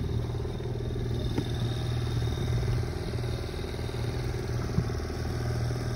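A boat's outboard motor running steadily at low speed, a constant low hum.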